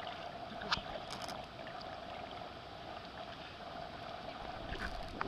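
Lake water sloshing and splashing around a man swimming and a dog paddling in a life jacket, with a few sharp splashes, the clearest about a second in, over a steady hum.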